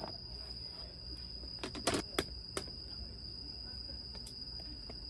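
Crickets chirring in a steady, high, unbroken drone. About two seconds in, a short cluster of sharp clicks and knocks from things handled on the table is the loudest sound, with a few fainter ticks later.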